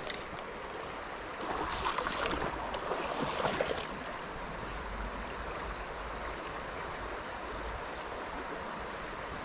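River water running over a shallow stony bed, a steady rush, with a few louder short scrapes and rustles in the first few seconds.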